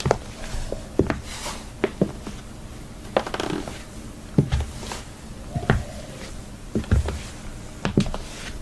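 High heels clicking and knocking on a hard floor in slow, irregular steps, about one a second.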